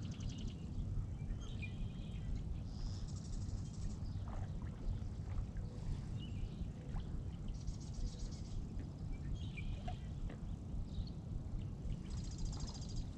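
Wind rumbling on the microphone, with birds singing: short chirps followed by a buzzy trill, a phrase repeated about every four to five seconds.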